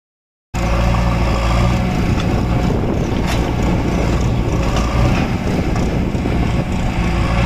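Diesel engines of a Mahindra 575 DI tractor and a JCB 3DX backhoe loader running, a loud steady rumble with a few faint clanks. It cuts in suddenly about half a second in, with the tractor straining to pull a fully loaded trolley out of the mud.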